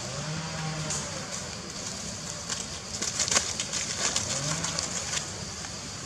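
A dove cooing twice, each a low call that rises and then holds, one near the start and one about four seconds in. In between, a run of sharp crackles and rustles in dry leaf litter as young monkeys scuffle, loudest around the middle.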